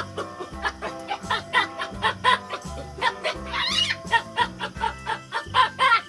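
Baboon calls, quick repeated chattering barks with a rising squeal about three and a half seconds in, over background music with a steady bass beat.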